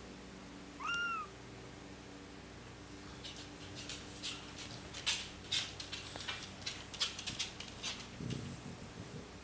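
A young Bengal kitten gives one short, high mew about a second in, rising then falling in pitch. After that come irregular soft rustling and scratching noises of the kittens being handled on the cloth.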